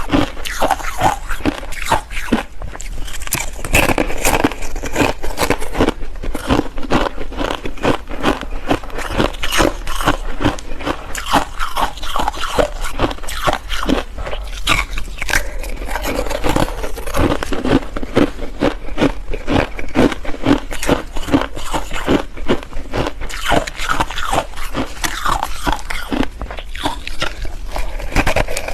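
Ice being bitten and chewed: continuous rapid crunching and crackling.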